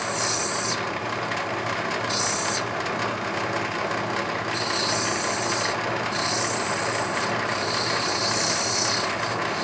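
Lapidary diamond grinding wheel running with a steady motor hum, and a high hissing grind each time the rough opal is pressed against the water-fed wheel, in several stretches of about a second or two between short breaks when the stone is lifted off.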